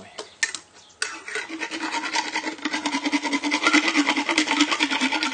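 Equine dental float rasping rapidly and continuously against a horse's molars, starting about a second in. This is the final polish that smooths the sharp edges of the teeth.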